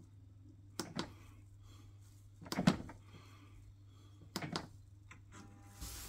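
Sharp plastic clicks in close pairs, about a second, two and a half seconds and four and a half seconds in, from buttons pressed on a Heatline combi boiler's control panel, over a faint steady hum.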